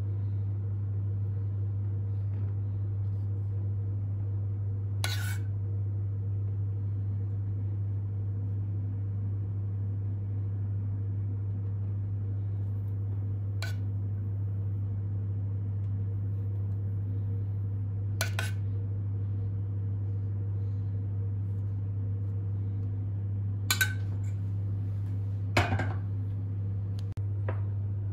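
Metal spoon clinking against the side of a stainless steel pot every few seconds while chocolate sauce is ladled out, over a steady low hum.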